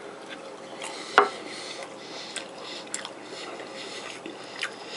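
A metal fork clinking against a ceramic dinner plate a few times, the sharpest click about a second in.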